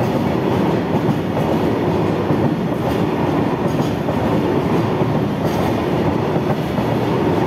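Tank wagons of a goods train rolling past close by: steady noise of steel wheels running on the rails.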